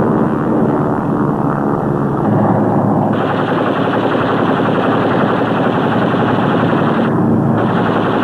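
Continuous rapid machine-gun fire over the steady drone of piston aircraft engines. The sound changes abruptly about two and three seconds in, as at edits in the soundtrack.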